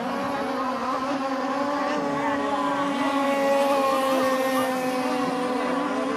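Motorboat engine running at a steady speed, an even drone with a slight wavering in pitch.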